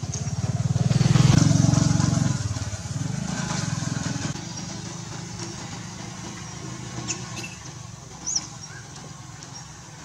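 A vehicle engine passing, growing louder to a peak about a second and a half in, then fading away. Two short high squeaks follow in the second half.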